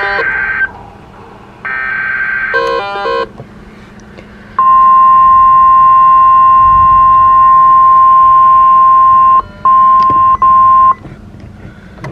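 Emergency alert signalling from NOAA Weather Radio: two screeching digital SAME header bursts about a second apart, then the loud single-pitch weather radio warning tone, around 1050 Hz, held for about six seconds with two brief dropouts, marking the start of a new warning.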